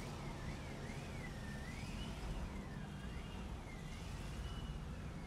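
Suzuki Cultus car running with a low engine and road rumble. Over it is a faint siren-like wail that rises and falls in pitch roughly once a second.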